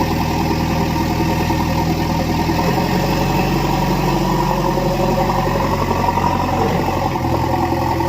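Heavy diesel engine running steadily, its note changing about three seconds in and changing back near the end.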